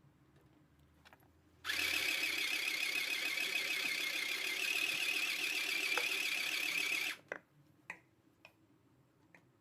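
Mini sewing machine running at a steady speed for about five seconds, a fast, even mechanical whirr that stops abruptly, followed by a few light clicks.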